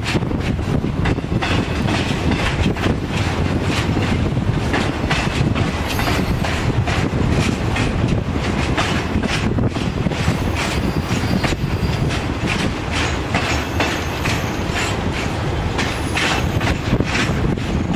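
Empty centre-beam flatcars of a CN freight train rolling past: a steady rumble with a continual run of wheel clicks over the rail joints.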